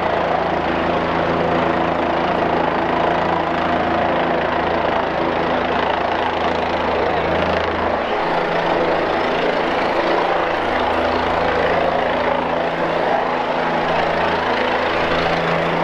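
Rescue helicopter running steadily nearby: the continuous beat of its rotors with turbine noise, loud throughout, its lowest note dipping briefly about halfway through.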